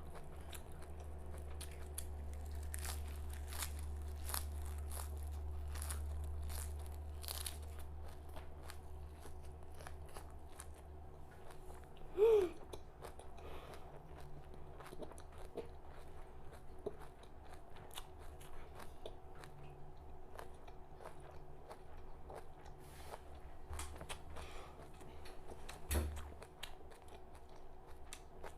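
Close-up crunching and chewing of raw red amaranth leaves, many small crisp clicks. About twelve seconds in there is a short, louder pitched sound, and near the end a single knock.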